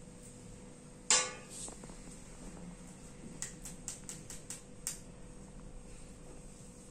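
A small glass vaccine vial clinks down on a hard tabletop about a second in, with a short ring. A little later comes a quick run of about seven light clicks from fingers flicking a filled syringe to clear air bubbles before the injection.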